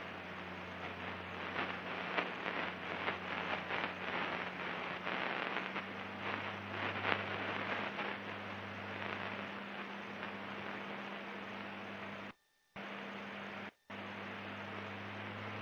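Cockpit intercom audio of a Cirrus SR22 in cruise: a steady low engine drone under hiss and crackly static. The audio cuts out completely twice near the end, once for about half a second and once very briefly.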